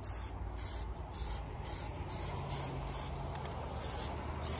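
Aerosol can of Plasti Dip rubber coating spraying in short bursts, about two a second, giving a stop-start hiss. A steady low rumble runs underneath.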